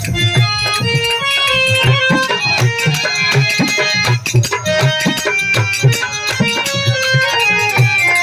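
Instrumental folk stage-show music: hand drums beating a steady, fast rhythm under a sustained melody line.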